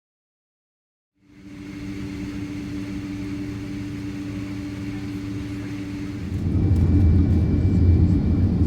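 Boeing 767-300 jet engines heard from inside the cabin: a steady low rumble with a hum fades in after a second of silence, then grows louder and rougher about six seconds in.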